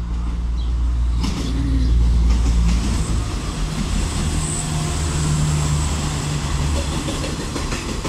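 Train running past with a steady low rumble and a thin high whine, loudest about two seconds in.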